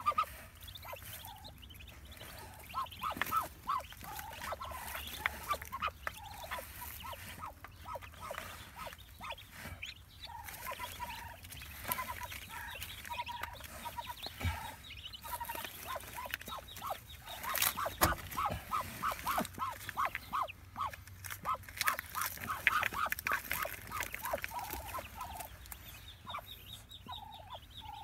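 Muscovy duck hen and her newly hatched ducklings calling in the nest: rapid runs of short repeated notes, several a second, coming and going throughout.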